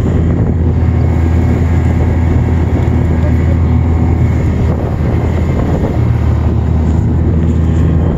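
Snowmobile engine running at a steady cruising speed, heard from on board while riding.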